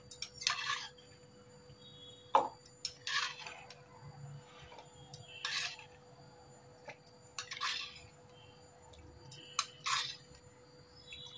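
A steel spoon clinks and scrapes against steel bowls as cashews are spooned into a mixer-grinder jar. There are about seven short clinks, irregularly spaced every second or two.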